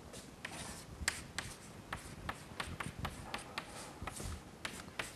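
Chalk writing on a chalkboard: a quick, irregular run of faint taps and short scratches as an equation is written.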